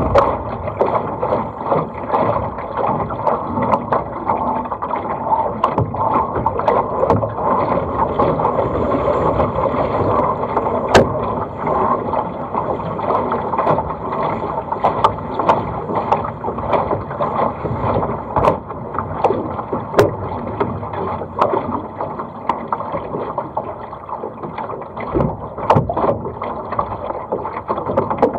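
Water rushing and splashing along the hull of a small sailing dinghy under way, with scattered sharp knocks and clicks throughout.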